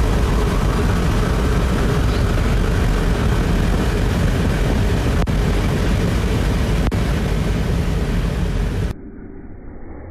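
Loud, steady rushing vehicle noise with heavy low rumble. About nine seconds in it cuts suddenly to a quieter, muffled vehicle sound.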